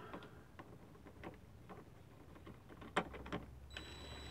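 A few light clicks and taps of metal on plastic, then about three and a half seconds in a cordless drill/driver starts whirring with a steady high whine as it drives a headlamp mounting bolt.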